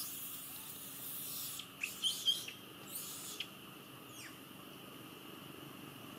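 Leaves and branches rustling in a few bursts, with several short, high, falling squeaks about two seconds in, over a steady high background hum.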